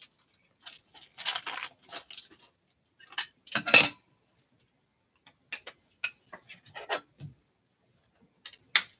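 Clicks and rustling from a hard plastic magnetic one-touch card holder being handled as a trading card is put inside it, with a sharp click near the end.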